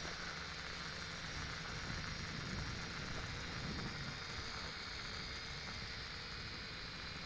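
Faint, steady hum and whine of the MJX X400 quadcopter's propellers as it hovers in flight, over an even background hiss.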